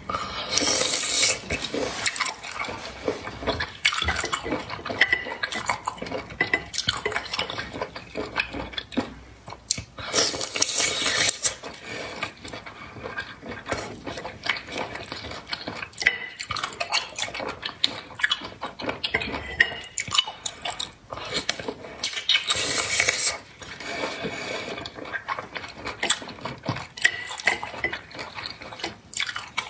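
Close-miked eating sounds of raw sea cucumber in chili sauce: gloved hands squishing and dipping the wet pieces in the sauce bowl, with dripping and small clinks against the ceramic bowl. There are three louder wet, hissing bursts: at the start, about ten seconds in and about twenty-two seconds in.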